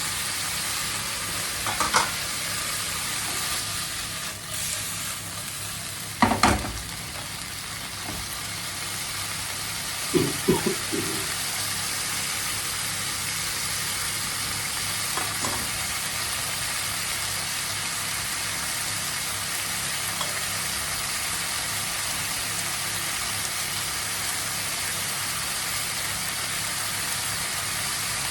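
Chicken livers frying in olive oil in a pan: a steady sizzle, with a few short knocks against the pan, the loudest about six seconds in and a quick cluster around ten seconds.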